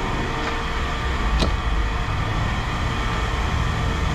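Steady low rumble of a running vehicle engine, with one sharp click a little over a second in.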